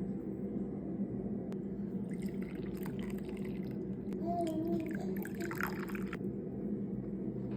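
Tea being poured and dripping, with a brighter stretch of trickling about five seconds in, over a steady low hum.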